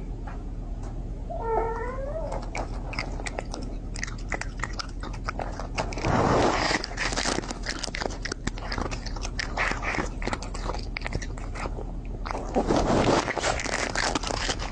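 A kitten gives one short meow about a second and a half in, then crunchy biting and chewing clicks go on, with two louder rushes of noise midway and near the end.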